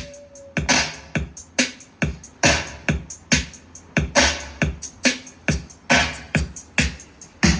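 Electronic music with sharp, evenly spaced drum hits, played on a JBL Charge 5 portable Bluetooth speaker for a sound test.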